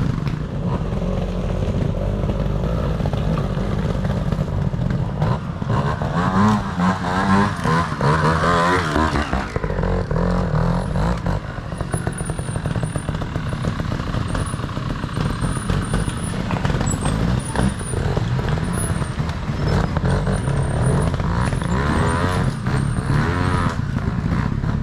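Trials motorcycle engine running and being blipped, its revs rising and falling quickly about six to nine seconds in and again near the end.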